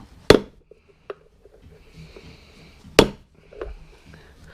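Hammer striking a socket used as a driver to press a bushing into the rear wheel: two hard blows about two and a half seconds apart, with lighter taps between.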